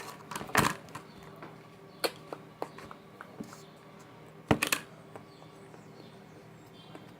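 Slime being handled and worked by hand, with scattered sharp clicks and pops; the loudest come about half a second in and at about four and a half seconds, a quick pair.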